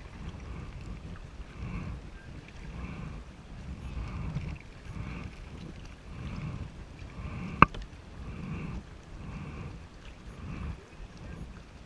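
Kayak paddle strokes, a soft swish and splash repeating about every 0.7 s as the blades dip into the water on alternate sides. One sharp knock about seven and a half seconds in, most likely the paddle striking the kayak.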